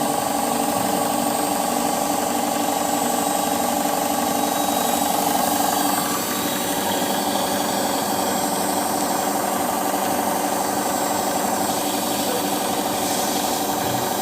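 Samsung washing machine running, its motor giving a steady mechanical hum and whine that changes tone about six seconds in.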